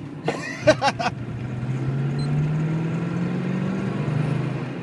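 Rover 3.5-litre V8 of a 1972 Rover 3500S heard from inside the car, pulling up through the revs for a couple of seconds under acceleration, then easing off near the end.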